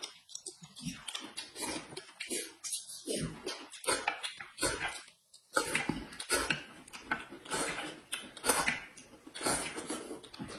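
Two people eating noisily close to the microphone: slurping from a bowl of broth and chewing wet food, in quick irregular bursts with brief pauses, and the odd light clink of chopsticks on dishes.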